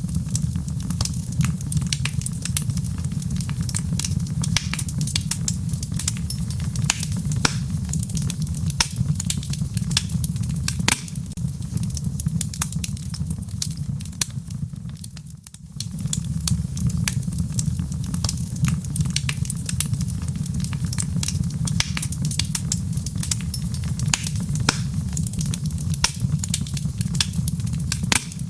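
Wood fire crackling in a fireplace: many sharp pops and snaps over a steady low rumble. The sound fades briefly about halfway through, then comes back.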